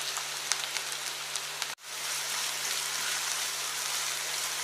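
Julienned carrots frying in hot oil in a nonstick frying pan: a steady sizzling hiss with light crackles. The sound breaks off for a moment about two seconds in and picks up again unchanged.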